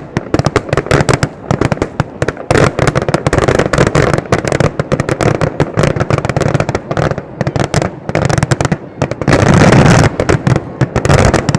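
Fireworks display bursting in a dense, rapid barrage of bangs and crackles, merging into an almost unbroken run of blasts about nine to eleven seconds in.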